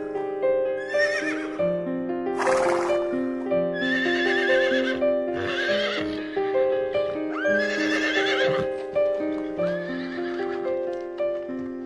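Horse neighing over and over, about six wavering calls every one and a half to two seconds, over steady background music.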